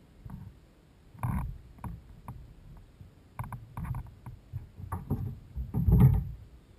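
Water splashing and irregular knocks against a kayak as a largemouth bass is landed by hand beside the boat, the biggest splash as the fish is lifted from the water about six seconds in.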